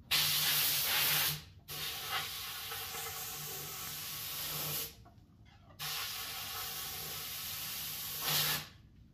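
A rushing hiss in three long bursts: a loud one of about a second, then two of about three seconds each, with short pauses between. A low steady hum sounds under each burst, and the last one swells louder just before it stops.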